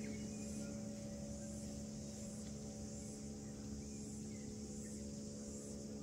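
A high insect chorus, cicadas in the bush, pulsing about once a second over a steady low hum.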